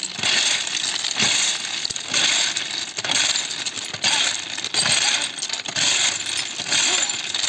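Crushed-stone ballast being packed under a railway sleeper with hand tools: repeated gritty, clinking strikes into the stones, about one a second.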